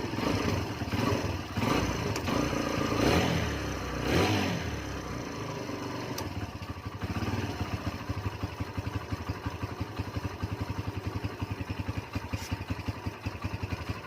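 Kawasaki Barako 175 single-cylinder four-stroke engine, freshly tuned up, revved a few times and then settling into a steady idle. The valves have just been adjusted, and the loud rocker-arm ticking is gone.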